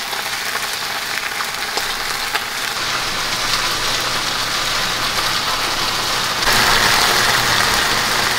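Leafy greens sizzling as they are stir-fried in a nonstick frying pan over a gas flame, with a few light taps of a wooden spatula against the pan. The sizzle grows louder for the last couple of seconds.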